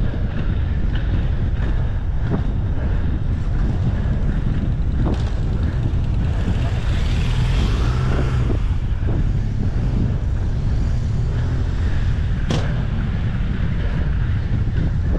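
Steady wind rumble on the microphone of a camera worn by an inline skater moving at speed, with the roll of skate wheels on asphalt and a few sharp clicks.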